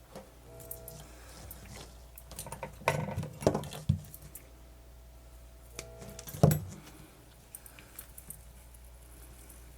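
Small tools and parts being handled on a workbench: scattered clicks, clacks and rustling, loudest in a cluster of knocks around three to four seconds in and one sharp clack past six seconds.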